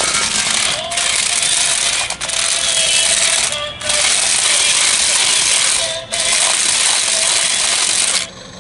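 Toy RC stunt car driving over brick pavers, its electric drive motors and plastic wheels making a loud rattling whir. It cuts out briefly four times as the throttle is let off, then stops shortly before the end.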